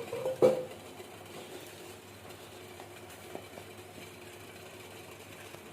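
Kitchen sounds while oil is put in a pan to heat for tempering: two short knocks near the start, the louder one about half a second in, then a steady low hum.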